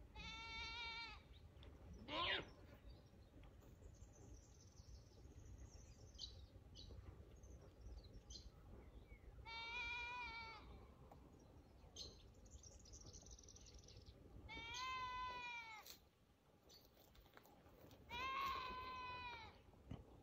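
Wild goats bleating: four separate drawn-out, high-pitched bleats, spaced several seconds apart. A quick rising whistle comes about two seconds in, and faint short chirps fall between the bleats.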